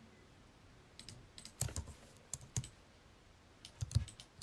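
Scattered clicks and taps of a computer keyboard and mouse, some in quick little clusters, with short quiet gaps between them.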